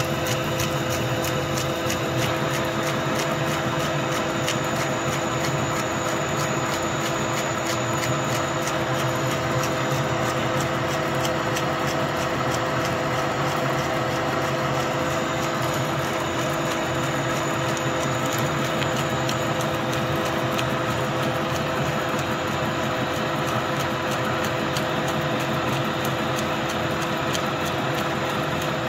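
Okuma lathe running steadily while its tool turns a long steel shaft, the cut throwing off chips: an even machine hum with a few steady gear tones and a fast, even ticking over it.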